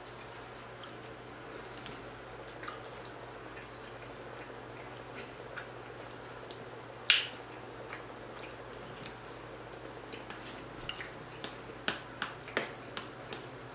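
Close-miked chewing and lip smacks of a person eating, with the light clicks and scrapes of a metal fork against a clear plastic food tray. A sharper click comes about seven seconds in, and a run of clicks near the end as the fork digs into the rice.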